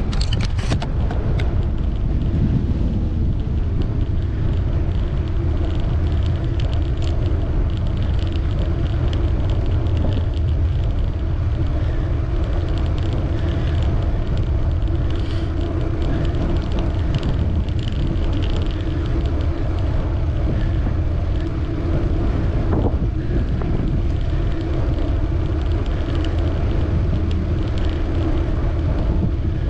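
Wind buffeting the microphone on a moving bicycle: a steady low rumble, with a few clicks near the start.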